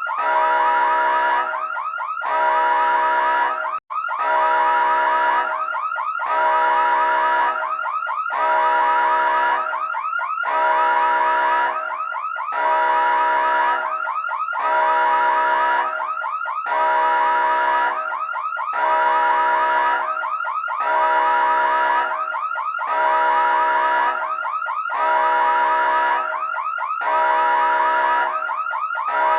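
Electronic emergency siren sounding in a repeating cycle about every two seconds: a steady tone held for about a second, then a fast warble. It cuts out for an instant about four seconds in.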